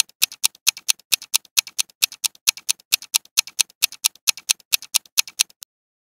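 Countdown clock-ticking sound effect: an even, fast tick-tock of about four ticks a second that stops abruptly near the end, marking the time allowed to answer.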